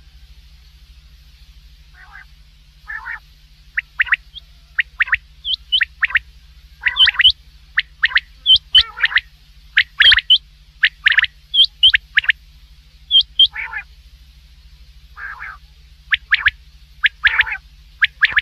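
Common quail calling: short, sharp notes repeated in quick clusters of two or three, with a few softer, lower calls among them and a steady low hum underneath.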